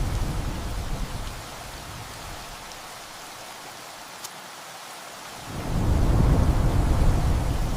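Heavy rain falling steadily, with a low rumble of thunder that dies away about a second in and a second rumble that swells up about five and a half seconds in.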